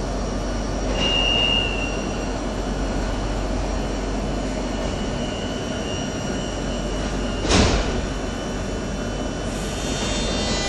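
Metro de Madrid series 3000 train standing at an underground platform with a steady hum of its equipment. A high steady tone sounds briefly about a second in and again, fainter and longer, around five seconds in, and a short sharp burst about seven and a half seconds in is the loudest sound.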